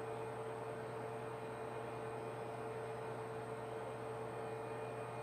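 Room tone: a steady low electrical hum with a faint higher tone over background hiss, unchanging throughout.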